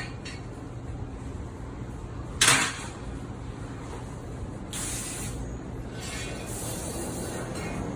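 Dishes being washed in an outdoor metal-lined sink: one loud sudden clatter about two and a half seconds in, then hissing bursts of water spray later on, over a steady low hum.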